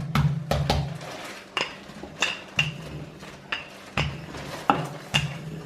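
Rolling pin knocking and clacking on the kitchen counter while dough is rolled out: about a dozen sharp knocks, roughly two a second, over a low rumble from the rolling.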